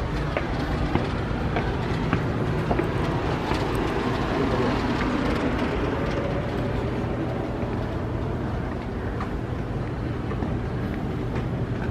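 Steady low mechanical hum under an even background noise, with a few faint taps of footsteps.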